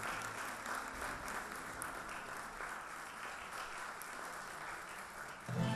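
Concert audience applauding. Near the end the applause gives way as the instrumental ensemble starts playing.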